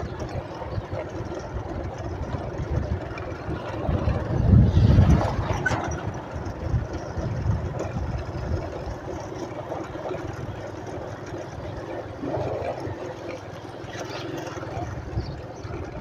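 A vehicle driving slowly, its engine and tyres giving a steady low rumble, with a louder swell about four and a half seconds in.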